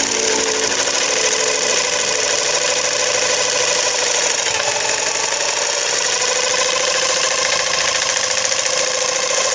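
A small motor running steadily, without a break.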